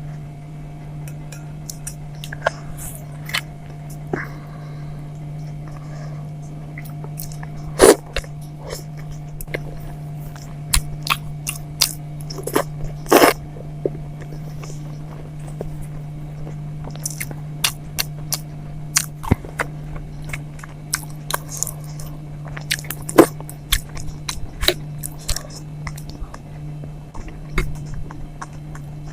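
Close-miked mouth sounds of someone eating idli with sambar and chutney: irregular wet smacks and chewing, with sharp clicks that are loudest about 8, 13 and 23 seconds in. A steady low hum sits underneath.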